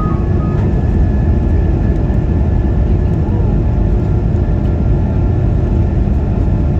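Steady, loud rumble of an Airbus A220-300's engines and rushing air, heard from inside the passenger cabin, with a faint steady whine above the roar.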